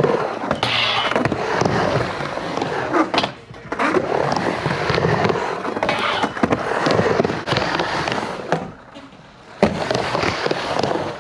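Skateboard wheels rolling and rumbling on a backyard vert ramp, surging and easing as the board rides up and down the transitions. The rumble drops out twice, and a sharp clack sounds about nine and a half seconds in as the board comes back onto the ramp.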